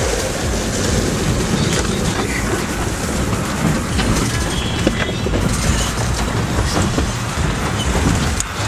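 A 4x4 driving over a rough, rocky dirt track, heard from inside the cab: a steady rumble of engine and tyres with continuous rattling and knocking as the vehicle jolts over the bumps.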